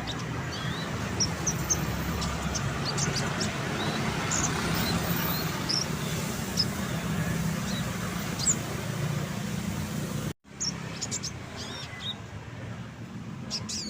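Konin birds chirping: many short, high chirps and whistled notes scattered throughout, over a steady low rumble of background noise. The sound drops out briefly about ten seconds in, and the rumble is quieter after it.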